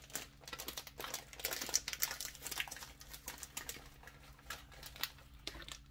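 Plastic snack wrapper crinkling as it is pulled open by hand, a quick run of small crackles.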